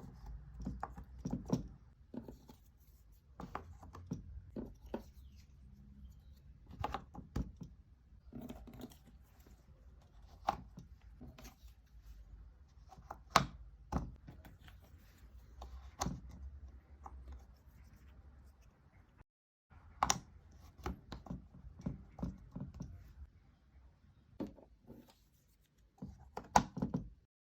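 Cardboard jigsaw puzzle pieces being handled and pressed into place on a table: irregular light clicks and taps, a few of them sharper, with soft rustling and sliding between.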